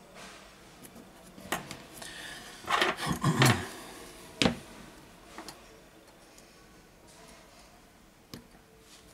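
Small hand-work noises of a plastic phone display frame and steel tweezers: scattered clicks and ticks, with a cluster of knocks and rustling about three seconds in as the frame is shifted on the work mat.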